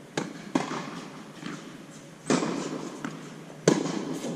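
Tennis rally: a racket strung with Signum Pro Firestorm string strikes the ball, and the ball bounces on the hard court and is struck again. Four sharp pops, each echoing in the indoor court hall, the loudest near the end.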